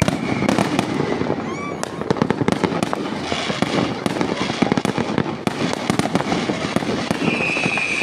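A fireworks barrage with many shells going off at once, a dense run of rapid pops, crackles and bangs. Near the end a high whistle starts and slowly falls in pitch.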